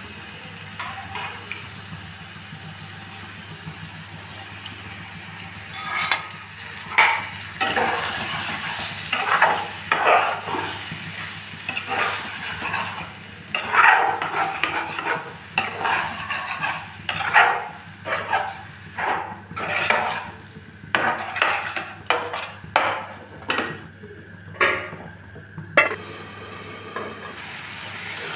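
Marinated chicken livers sizzling in masala in a non-stick kadai. From about six seconds in, a spatula stirs and scrapes the pan in repeated strokes, roughly one a second, which stop shortly before the end.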